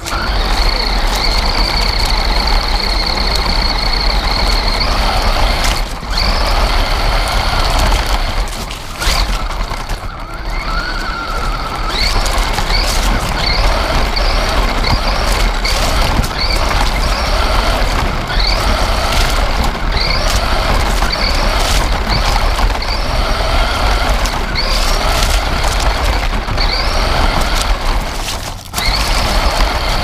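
Small 4WD electric RC truck driving fast over wooden deck boards, heard from a camera riding on it. The motor's whine rises and falls again and again with bursts of throttle, over a steady rumble and rattle from the wheels and chassis on the boards, with a few brief let-offs.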